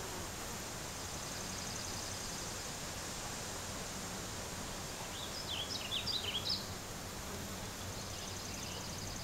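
Steady outdoor background hiss, with a short phrase of songbird song about five seconds in: a quick run of high chirps lasting about a second.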